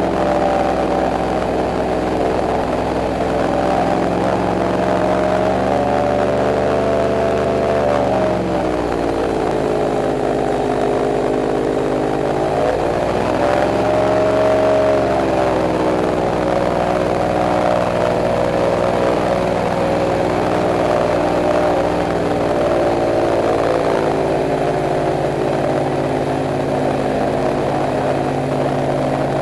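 Airboat's engine and air propeller running under way, with a steady pitched drone. The pitch drops about eight seconds in as the throttle eases, climbs again a few seconds later, then settles back to a steady cruise.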